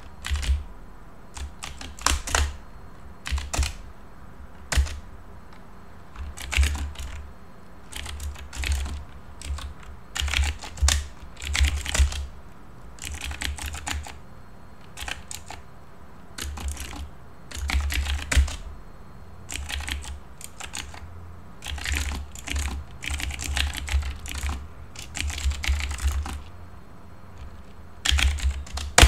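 Typing on a computer keyboard: runs of keystroke clicks with short pauses between them.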